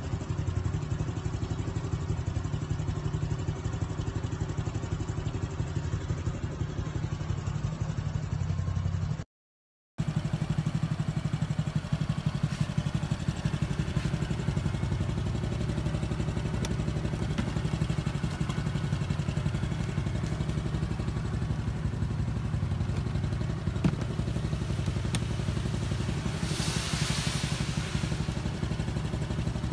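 Honda Super Cub 50 (AA04) single-cylinder four-stroke engine idling steadily, with a fast, even low chug. It breaks off for under a second about nine seconds in, then idles on, and a brief hiss is heard near the end.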